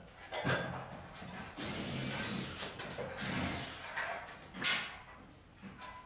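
Cordless drill-driver run twice at a ceiling-cassette air conditioner unit, its motor pitch rising and then falling each time. A short, sharp louder noise comes near the end.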